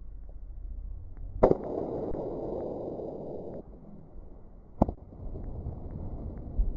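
Two sharp open-hand slaps about three and a half seconds apart. The first is followed by about two seconds of crowd murmur.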